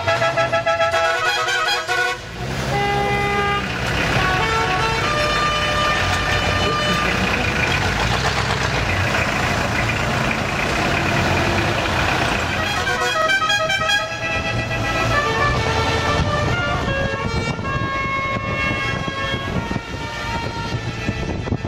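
Car horns honking again and again, several at different pitches and often overlapping, over the running engines and road noise of a line of classic cars.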